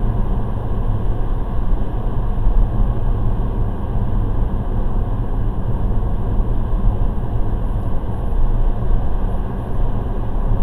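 Steady road and engine noise inside a car driving along at speed, picked up by a Thinkware F750 dash cam's microphone: mostly low-pitched, with no distinct events.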